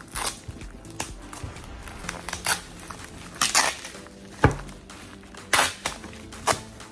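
Handling noises from unboxing: about six knocks and rustles of packaging and parts, the sharpest a little past the middle, over soft background music.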